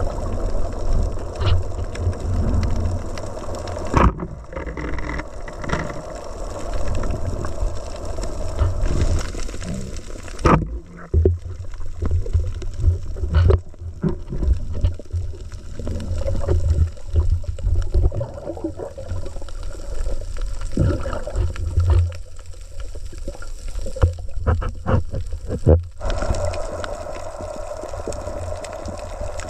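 Underwater sound picked up by a diver's camera: a steady muffled rumble of water moving past the housing as the diver swims, with scattered sharp clicks and knocks.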